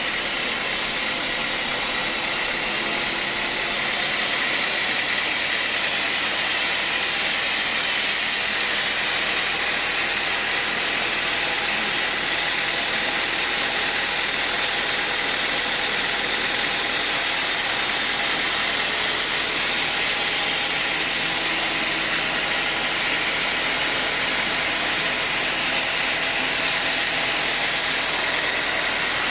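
Sawmill machinery running steadily: a continuous loud mechanical noise with a steady high whine.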